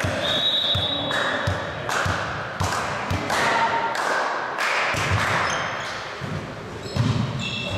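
Volleyballs thudding as they are hit and bounce on a sports-hall floor, one or two thuds a second, echoing around the hall. A couple of short high squeaks come near the start and near the end.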